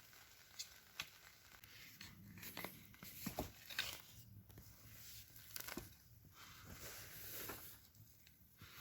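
Faint, irregular rustling and crunching with scattered sharp clicks from potatoes being harvested, plants and soil being pulled and handled.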